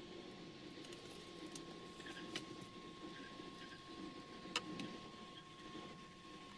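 Faint handling noise from working on a tablet computer's case and small parts, with light ticks and two sharp clicks, about two and a half and four and a half seconds in, over a faint steady whine.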